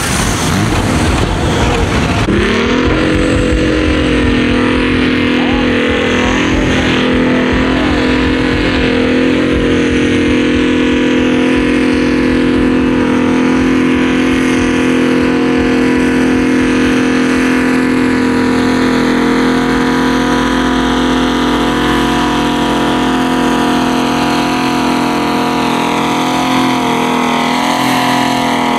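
Farm tractor diesel engine run flat out under load, pulling a weight-transfer sled. The revs climb over the first couple of seconds and then hold at a steady high pitch, with only slight wavering near the end.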